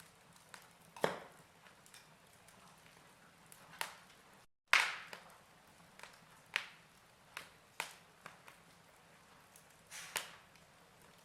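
Fire crackling: sharp, irregular pops and cracks every second or so over a faint steady hiss. The sound cuts out for an instant about four and a half seconds in, followed by the loudest crack.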